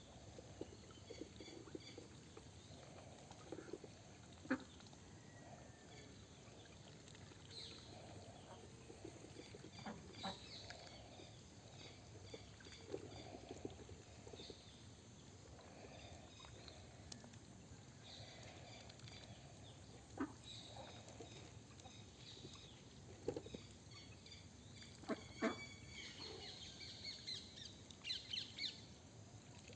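A flock of white Pekin ducks and ducklings calling faintly: scattered low quacks mixed with short, higher peeps, with a few sharp knocks here and there.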